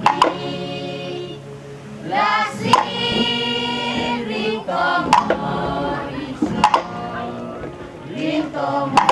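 A group of voices singing together in held, harmonised notes, with sharp percussion strikes every second or two.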